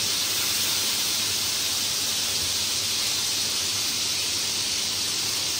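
Steady sizzle of oil and food frying in a stainless steel pan on a gas hob, an even hiss with no breaks.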